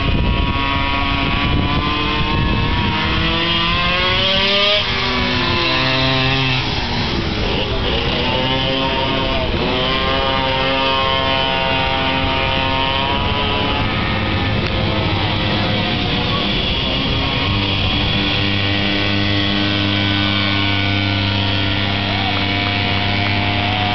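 Small two-stroke minimoto engines racing past, several heard at once, their pitch rising and falling as the bikes accelerate and slow through the corners.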